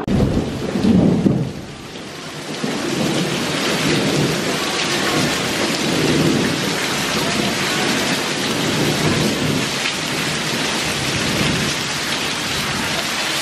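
Heavy rain pouring down steadily, after a loud low rumble in the first two seconds.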